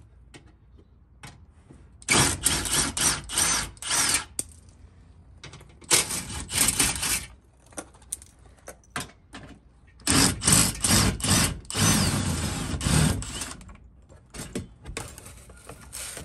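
Cordless power driver spinning out the 10 mm bolts that hold the Hellcat's plastic belly pan, in three bursts, the last the longest.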